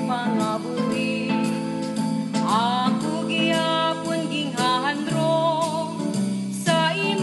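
A song playing: a wavering melody line over sustained backing instruments and a regular percussion beat.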